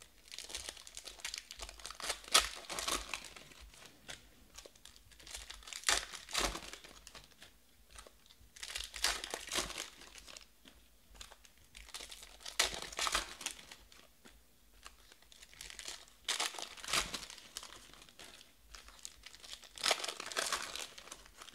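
Foil trading-card pack wrappers being torn open and crinkled by hand, in bursts about every three to four seconds, six in all.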